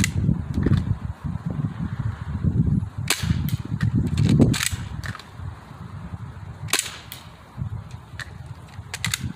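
Gas-powered BB pistol firing single shots, sharp pops a few seconds apart, about five in all.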